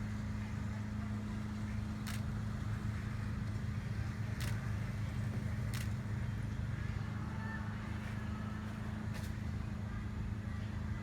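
A steady low motor hum with a few faint, sharp clicks spread through it.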